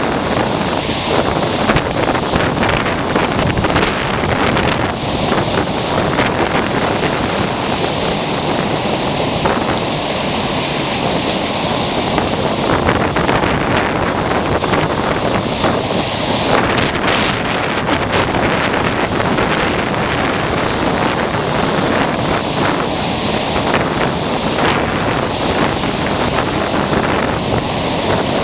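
Ocean surf breaking and washing onto a beach in a steady, continuous rush, with wind noise on the microphone.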